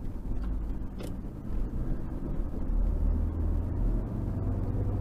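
Car engine and road noise heard from inside the cabin while driving, a steady low rumble that grows louder about three to four seconds in, with one sharp click about a second in.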